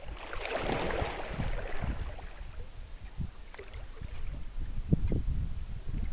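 Water splashing and sloshing as a person swims in a shallow lake, with a bigger splash at the start followed by irregular smaller splashes and dull low thumps.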